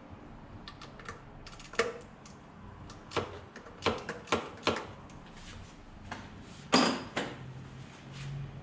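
Irregular sharp clicks and clacks of tools and metal and plastic engine parts being handled while hoses and a clamp come off the intake, with one louder clack near the end that rings briefly.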